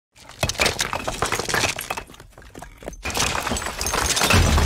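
Cracking-and-crumbling sound effect for a stone wall splitting: a dense run of sharp cracks and falling debris in two spells, the second louder, with a low rumble building near the end.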